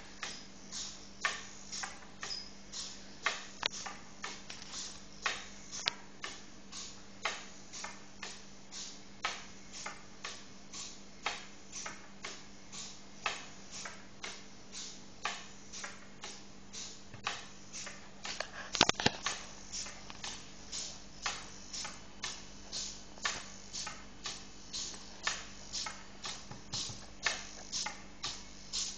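Pololu micro hexapod robot walking: its hobby servos and wire legs make a steady rhythm of sharp clicks, about two a second, over a faint steady hum. One louder knock about two-thirds of the way through.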